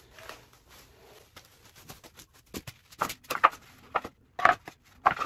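Plastic wrapping rustling as it is pulled off, then loose cedar boards knocking and clattering together several times from about halfway through as they are lifted.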